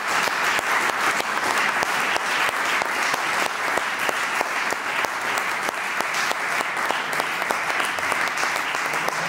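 Audience applauding, many hands clapping steadily at the end of a talk.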